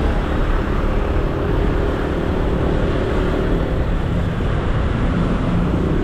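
Steady rumble of motorcycle engines and surrounding congested road traffic at low speed.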